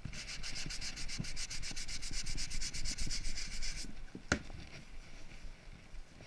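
Rapid back-and-forth rubbing on a wooden piece, about eight strokes a second, stopping just under four seconds in. A single sharp knock follows shortly after.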